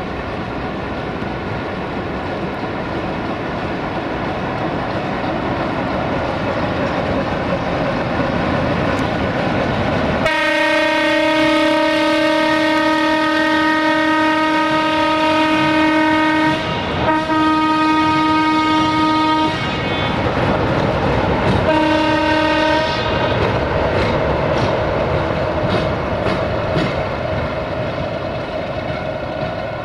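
Two Electroputere 060-DA (LDE2100) diesel-electric locomotives with Sulzer engines run under power while hauling a train across a steel truss bridge. Part way through, the horn sounds three times on one steady note: a long blast, a shorter one and a brief toot.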